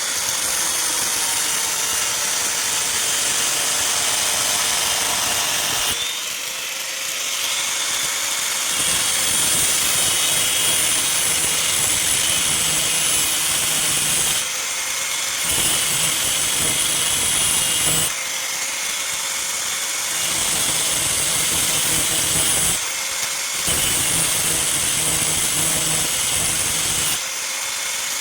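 Electric grinder running steadily, its wheel grinding the steel of a knife blade in repeated passes. The grinding breaks off for a second or two several times as the blade is lifted away.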